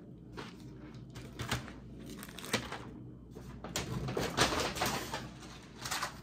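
Cardboard food boxes being handled: scattered light knocks and rustling, busiest from about four to five and a half seconds in.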